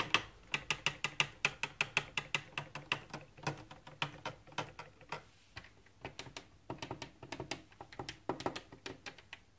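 Plastic keys of a Funkey 37 children's keyboard clicking as they are pressed and spring back, a rapid run of light clicks that thins out after about five seconds. No notes sound: the keyboard is still unpowered, so only the keys' own mechanical clatter is heard.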